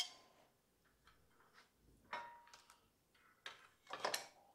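Plastic electrical connectors for a motorcycle's rear turn signal and licence-plate light being unclipped and pulled apart by hand: a sharp click right at the start, then scattered softer clicks and rustling of the wires.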